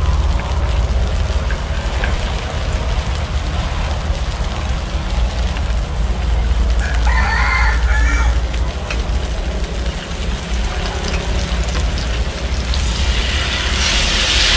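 A rooster crows once about halfway through, over a steady low rumble and a hiss that grows louder near the end.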